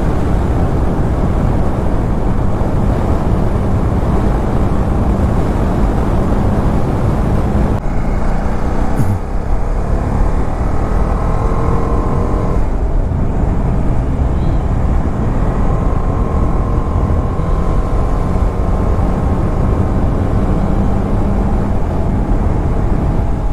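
Wind rush on the microphone and the engine of a TVS Apache RR 310 single-cylinder sport motorcycle cruising on a highway, loud and steady, with a low hum underneath. A fainter higher whine comes and goes twice.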